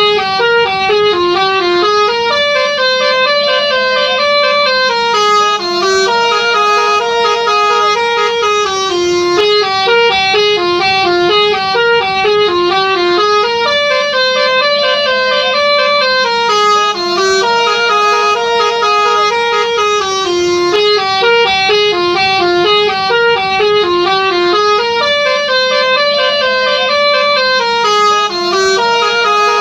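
A 'telolet' multi-tone bus horn playing a looping melody of quick stepped notes. The phrase repeats about every eleven seconds, with a few wavering held notes.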